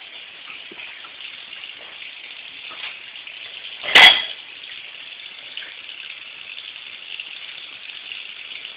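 Tap water running steadily into a sink as dishes are washed by hand, with one loud sharp clatter of dishware about four seconds in.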